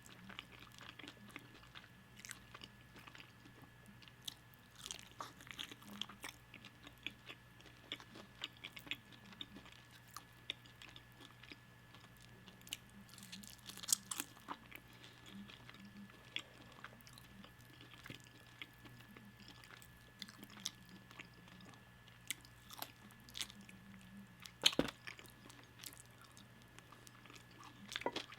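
Close-miked chewing and biting of food, with crisp crunches and wet mouth clicks scattered throughout, the loudest crunch near the end. A steady low hum runs underneath.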